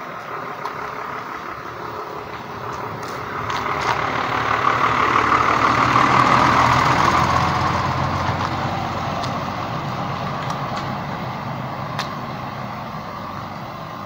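Flatbed truck's engine and tyres as it drives slowly past close by. The sound swells to its loudest about six seconds in, then fades away.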